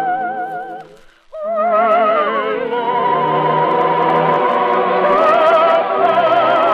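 Operatic soprano voice singing long high notes with a wide vibrato over an orchestra, in a song from a 1950s radio musical. The music drops out briefly about a second in, then the voice comes back in on a new held note.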